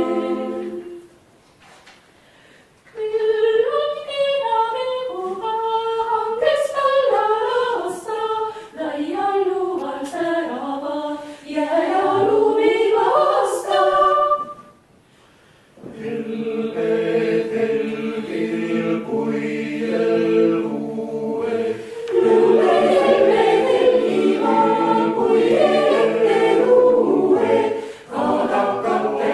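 Chamber choir singing. A held chord ends about a second in. After a short pause a single melody line is sung, then after another brief pause the full choir comes in, in harmony over long-held low notes.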